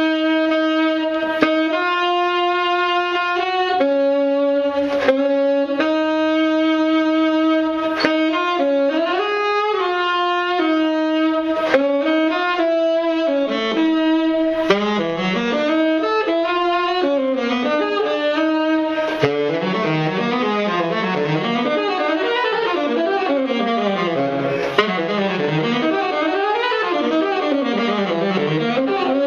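Solo saxophone improvising: long held notes and short phrases, with sharp clicks every few seconds. About two-thirds of the way through it becomes a dense layered texture of several lines sliding up and down at once.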